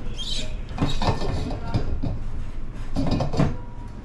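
The plastic screw lid of a large stainless-steel insulated water jug being unscrewed and lifted off. It gives short knocks and clicks in clusters about a second in and again around three seconds in.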